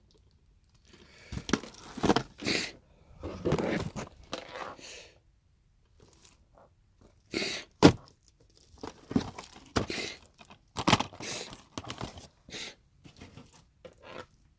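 Rummaging through stacked DVD cases: plastic cases and wrapping rustling, scraping and clacking in irregular bursts, with one sharp clack about eight seconds in.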